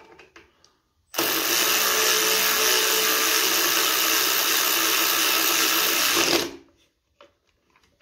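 Cordless power tool with a socket running steadily for about five seconds, driving in a new M8 socket cap screw. It starts suddenly about a second in and winds down near the end.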